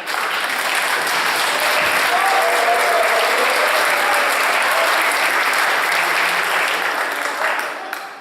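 Concert audience applauding in a hall, steady, then dying away near the end.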